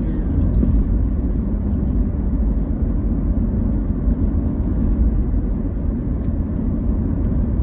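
Steady low rumble of a car driving on the road: engine and tyre noise, heard from inside the cabin.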